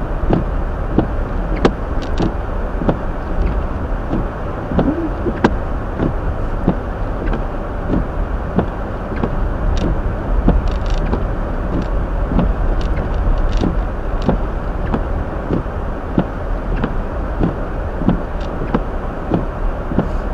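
Hyundai Elantra driving on snow-covered streets, heard inside the cabin: a steady low rumble of tyres and engine, with scattered irregular clicks and knocks.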